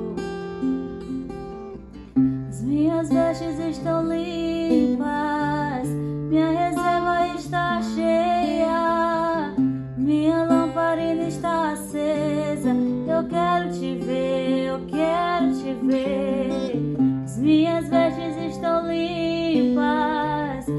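Music: a Christian worship song with acoustic guitar and a singing voice, the voice coming in about two seconds in after a short guitar passage.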